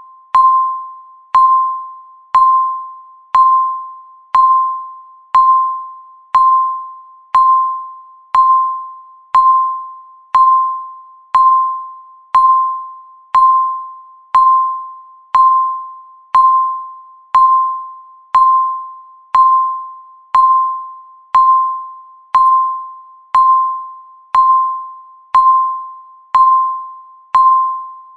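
Countdown timer beep sounding once every second: a single high electronic tone that starts sharply and fades away before the next one, all at the same pitch.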